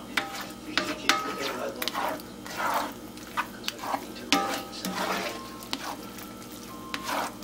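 Scrambled eggs being stirred and scraped around a cast iron skillet with a slotted spatula: scraping strokes across the pan's bottom, broken by about ten sharp clicks and knocks of the spatula on the iron.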